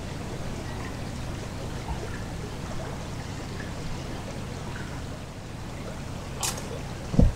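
River water flowing steadily under a footbridge. Near the end a hiker's footsteps begin, one of them a heavy thump, the loudest sound here.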